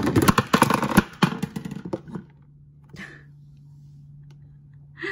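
A set of Starbucks reusable plastic cups toppling over after one is knocked by accident, a rapid clatter of many hard knocks for about two seconds.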